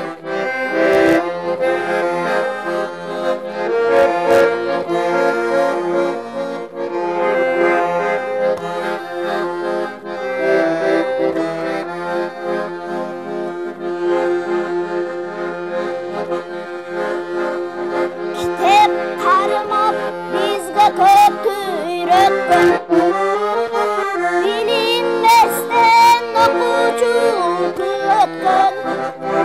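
Piano accordion playing an instrumental interlude of a Kyrgyz song, sustained chords under a melody line, between sung verses.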